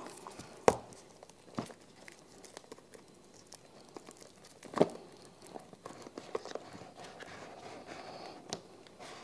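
Smartphone packaging being handled: plastic and paper crinkling, with a few sharp clicks and knocks, the loudest about five seconds in.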